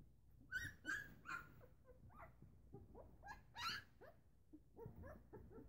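Eleven-day-old Newfoundland puppies whimpering and squealing: a run of short, high-pitched cries bending up and down in pitch over the first four seconds, then fainter brief squeaks near the end, as the pups seek their mother to nurse.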